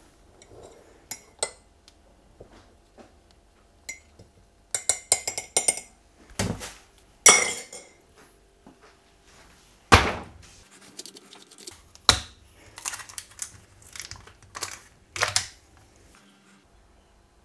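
Metal teaspoon clinking against a ceramic mug as tea is stirred and the spoon is knocked on the rim. There is a quick run of clinks about five seconds in, and several sharper single knocks follow.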